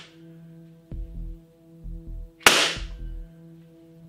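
Umarex / Elite Force Glock 17 CO2 gas-blowback airsoft pistol firing a single sharp shot about two and a half seconds in.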